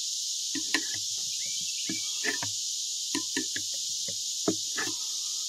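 Steady outdoor insect chorus, an even high-pitched hiss throughout, with a dozen or so short knocks and clinks scattered through it.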